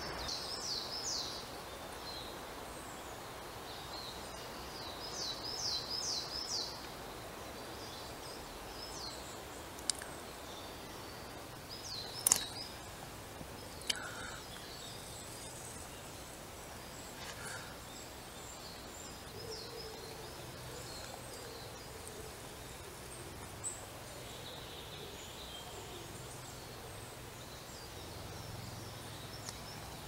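Small songbirds calling over steady outdoor background noise: high short chirps at the start and a quick run of sweeping notes about five seconds in, then a few sharp clicks near the middle.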